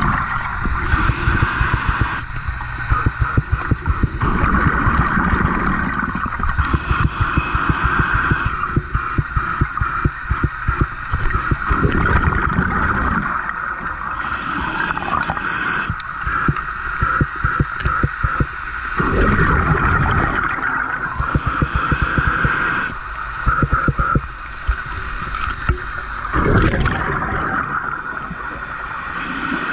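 Scuba regulator exhalations heard underwater: bursts of bubbles rumbling and gurgling every two to three seconds, over a steady high hum.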